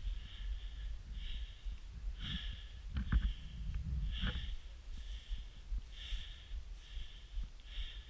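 A person breathing hard close to the microphone, one breath about every second, over a low rumble, with a couple of sharp clicks.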